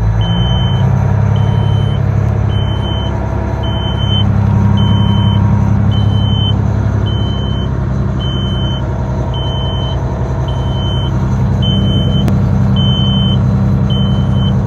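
Kenworth semi truck's N14 Cummins diesel engine running steadily, with a short high-pitched warning beep repeating about once a second.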